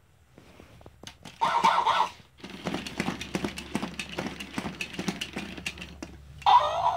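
Tekno robotic Dalmatian toy: a short electronic sound about a second and a half in, then the rapid clicking and clatter of its geared legs as it walks, and near the end a loud warbling electronic animal sound from its speaker.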